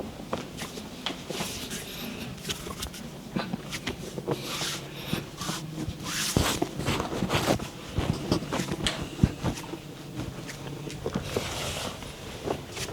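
Hands working over a client's body in a massage: irregular rubbing and brushing on skin and cloth, with scattered sharp taps and clicks.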